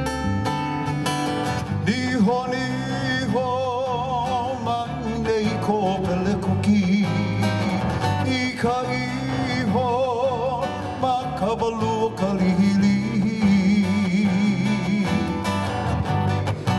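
Hawaiian music for hula: strummed acoustic guitars keeping a steady rhythm under a sung melody held with vibrato.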